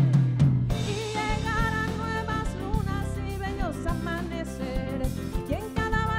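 Live band song: a woman singing a wavering melody over a drum kit and keyboard, with the full band playing loudly.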